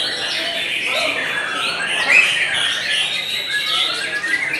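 White-rumped shama singing a fast, dense run of chirps, trills and short gliding whistles, with one louder sharp note about two seconds in.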